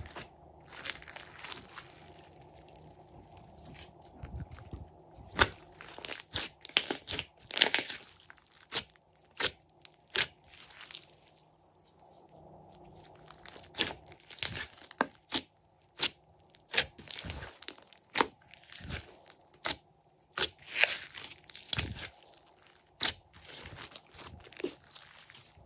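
Glossy slime with small beads mixed in being squeezed, stretched and folded by hand, giving irregular sticky pops and clicks. The pops ease off for a quieter spell a few seconds in and again near the middle.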